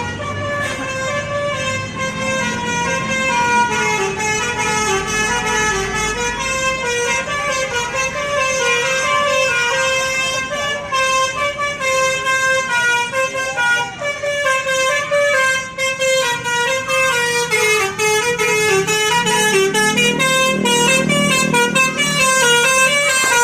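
Basuri telolet bus horn playing a melody of many short notes stepping up and down in pitch, one tune running into the next without a pause; the notes come faster in the second half.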